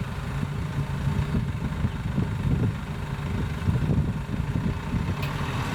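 A Sprinter van's engine running at low revs as the van is driven slowly forward, a steady low rumble.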